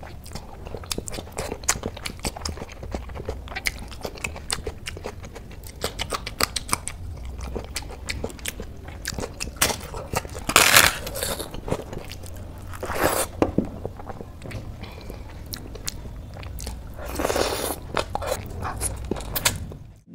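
Close-miked eating by hand: a person chewing and crunching mouthfuls of rice, curry and crisp fried food, with many small wet mouth clicks and a few louder crunchy bites.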